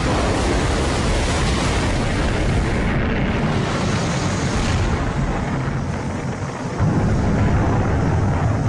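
Titan I missile exploding on the launch pad: a loud, continuous rumble of blast and burning that swells again about seven seconds in.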